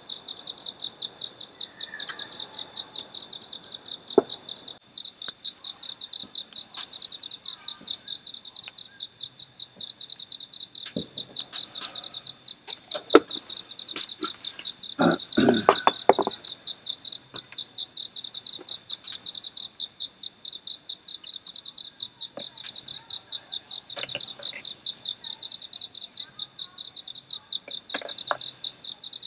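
Crickets or similar insects chirping in a steady, even pulse of about three chirps a second, over a continuous high insect drone. A few scattered clicks and a short clatter of knocks about halfway through, the loudest moment.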